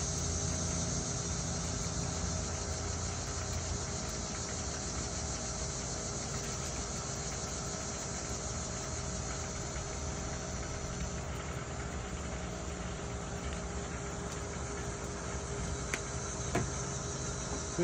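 Steady outdoor background: a high, even insect chorus over a low mechanical hum, with a couple of faint clicks near the end.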